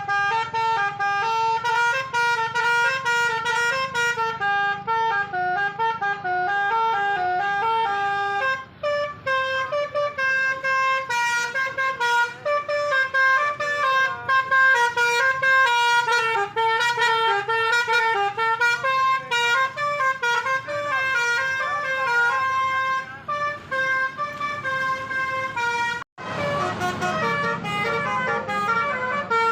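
Telolet horn, a multi-tone musical vehicle horn, playing quick stepped melodies of several notes over a low vehicle rumble. The tune breaks off in a cut about 26 seconds in, and another horn melody starts.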